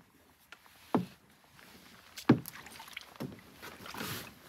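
Hollow knocks and thumps on a solo canoe's hull as a paddler climbs in from the shore and settles onto the seat. Two sharp knocks, about one second and two seconds in, are the loudest. Softer knocks follow, and a short rush of noise comes near the end.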